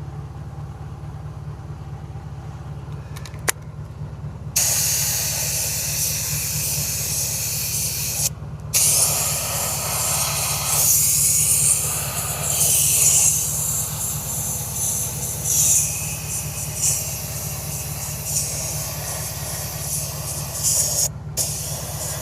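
Paint being sprayed onto the sanded repair on an alloy wheel: a hiss that starts about four and a half seconds in, swells and fades as the spray passes, and stops briefly twice. A steady low hum runs underneath.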